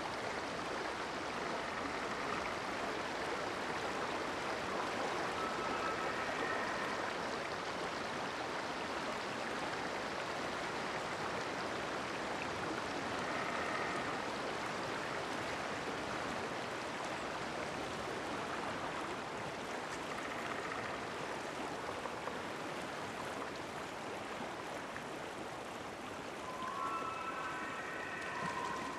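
River water flowing steadily, with a few short high calls of forest birds now and then, most near the end.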